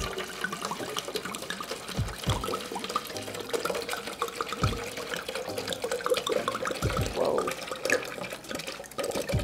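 White Zinfandel wine poured steadily from a glass bottle into a pitcher: a continuous splashing pour with a faint steady tone, broken by a few brief low bumps.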